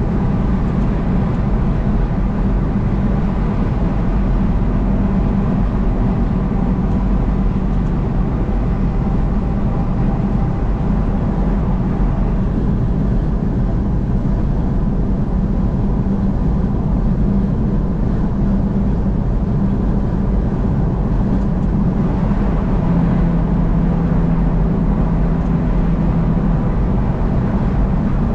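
Steady road and engine noise of a vehicle driving on the freeway, with a low hum that shifts slightly in pitch near the end.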